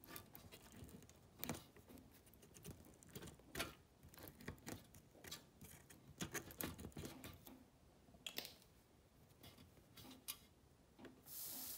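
Faint, scattered clicks and taps of a spring-loaded desoldering pump and soldering iron working the solder joints of a jack on a circuit board, a few of them sharper than the rest. A short hiss starts near the end.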